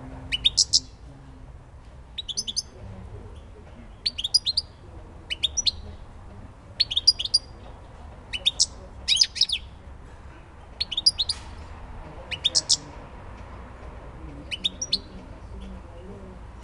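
European goldfinch giving short bursts of quick, high twittering notes every second or two.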